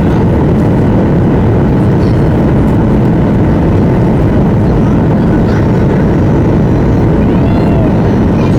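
Steady cabin noise inside a Boeing 737-800 on approach: the drone of its CFM56 turbofan engines mixed with airflow over the fuselage, deep and even with no changes.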